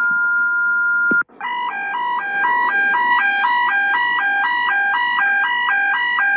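Electronic emergency-alert attention tones: a steady two-pitch tone cuts off about a second in, then a high-low alarm tone alternates quickly between two pitches.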